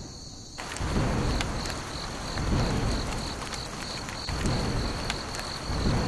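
Thunderstorm: rain starts hissing about half a second in, and thunder rumbles roll in several times. A steady, pulsing high cricket chirp carries on underneath.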